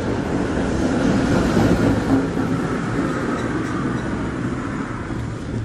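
City traffic noise: a vehicle passing close by, a low rumble that swells a second or two in and then eases off.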